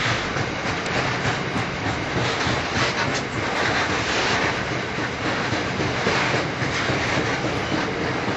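Narrow-gauge coal train rolling steadily along the track, its wheels rumbling on the rails.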